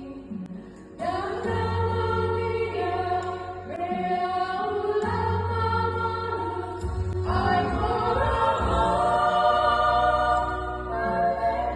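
Church women's choir singing a hymn in held, sustained notes, over a steady low hum. A short break about a second in, after which the voices come back in.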